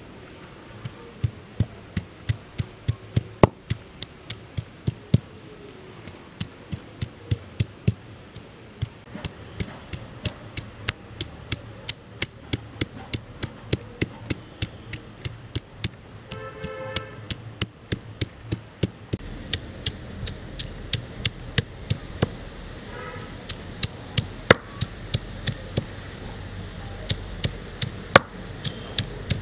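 Heavy stone pestle striking garlic, ginger and onion on a flat stone grinding slab, steady knocks about twice a second as the spice paste is pounded.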